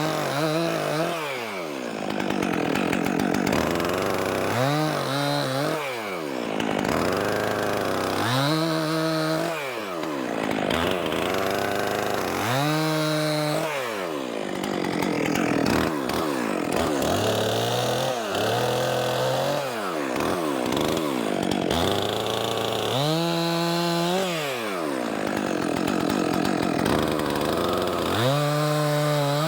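Stihl 400C two-stroke chainsaw cutting through logs, held at full throttle in each cut. Between cuts the engine pitch rises and falls as the throttle is eased off, about every four to five seconds.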